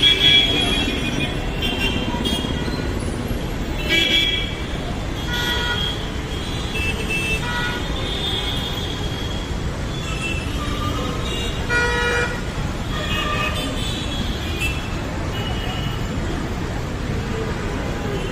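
Heavy road traffic in a jam: a steady engine rumble with many vehicle horns honking in short toots throughout. The loudest blasts come at the very start, about four seconds in and about twelve seconds in.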